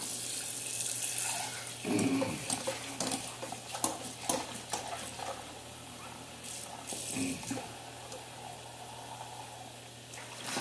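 Kitchen faucet running into a stainless steel saucepan held under the stream in a steel sink as it is scrubbed, with scattered light knocks of metal against metal.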